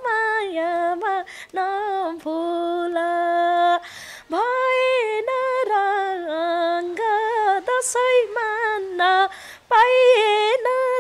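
A woman singing a Nepali folk song unaccompanied, in short phrases with wavering, ornamented notes and a brief pause about four seconds in.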